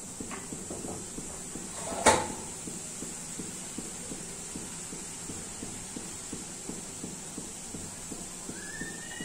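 Sugar syrup at a rolling boil in a metal pan, a steady fast crackle of bursting bubbles. One sharp knock about two seconds in.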